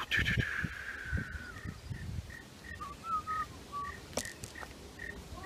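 Birds calling in the bush: a long falling whistle, then a short high note repeated about three times a second, with a few lower notes in between. Soft footsteps of someone walking on a dirt track underneath.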